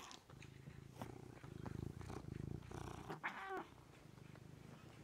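Domestic cat purring close by, with one short meow about three seconds in.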